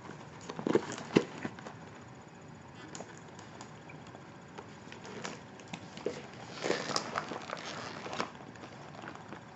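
Handling of a leather handbag: irregular light clicks and knocks, the sharpest about a second in, with a brief rustle about seven seconds in.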